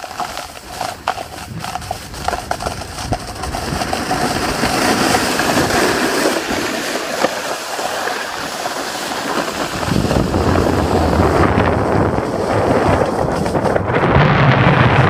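Wind buffeting the microphone and snow scraping and hissing under a rider sliding fast down a ski slope. The rush grows louder partway through, with heavy low wind buffeting in the last few seconds.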